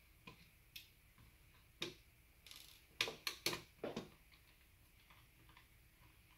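Light clicks and taps of small screws and parts of an M24 gel blaster being handled on a wooden bench during disassembly, with a quick run of sharper clicks about three to four seconds in.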